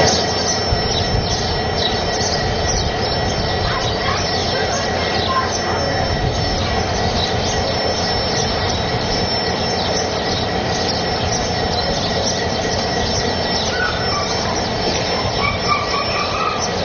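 Steady mechanical running noise: a dense rumble with a thin high whine over it, and a few short squeaks near the end.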